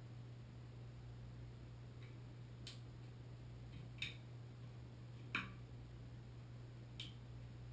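Four sharp metal clicks and clinks, a second or so apart, as hand tools work on a Moen Posi-Temp shower valve, over a steady low hum.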